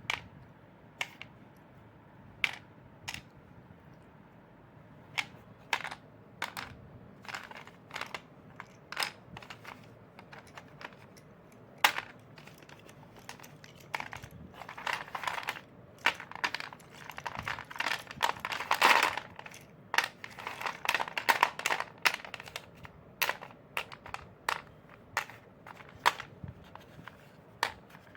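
Chalk crunching: sharp snaps every second or so, with a denser stretch of crunching in the middle.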